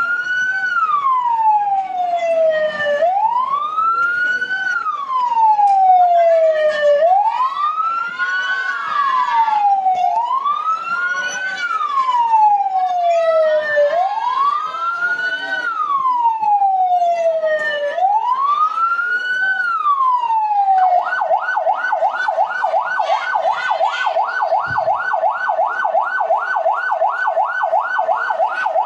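Emergency-vehicle siren sound effect played over loudspeakers. It wails, each sweep rising quickly and falling more slowly, about every three and a half seconds. About two-thirds of the way through it switches to a fast yelp of about four cycles a second.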